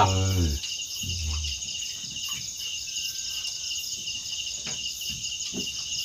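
A night insect chorus of crickets chirping without a break, several high pulsing voices layered together.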